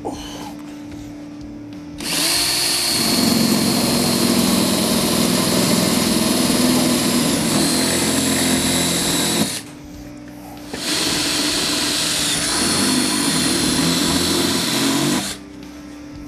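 Power drill boring holes up through a snowmobile's foot hoop and aluminum running board, in two runs: one of about seven seconds starting about two seconds in, then a shorter one of about four seconds after a brief pause. The motor spins up at the start of each run.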